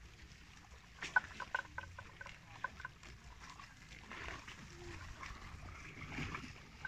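Water buffalo grazing in shallow water, tearing and chewing grass. About a second in comes a quick run of about ten short, evenly spaced pitched notes lasting about two seconds, followed by softer scattered rustling.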